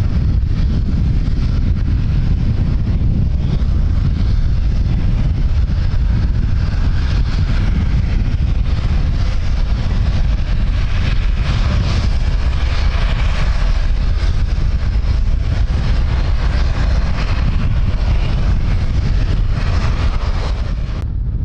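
Strong wind buffeting the microphone, a steady low rumble with rushing noise that swells in the middle of the stretch.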